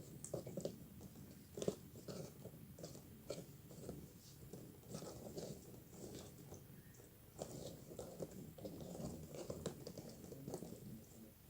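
Slime being squished and kneaded by hand, giving faint, irregular wet squelches and small clicks.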